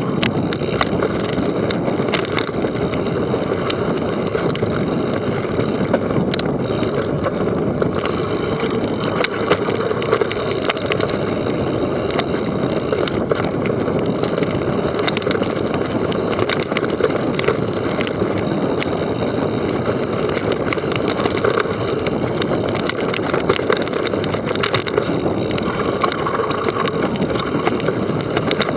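Mountain bike riding down a rough trail: a steady rush of wind and tyre noise, with frequent short clicks and rattles from the bike.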